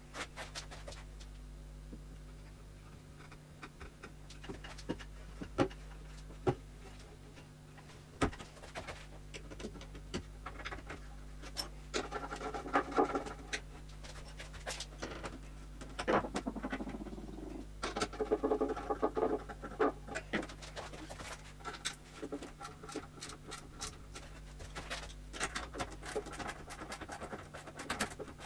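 Hand work on wooden furniture parts during assembly: scattered sharp knocks and clicks, with several stretches of scraping and rubbing, over a steady low hum.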